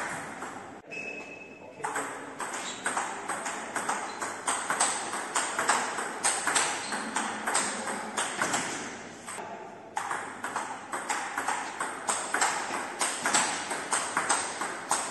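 A table tennis rally: the celluloid-plastic ball clicks off the rubbered bats, one of them a Butterfly Harimoto Tomokazu ALC blade, and bounces on the table at an even pace of about two to three hits a second. There is a short break in the hitting about a second in and another near ten seconds.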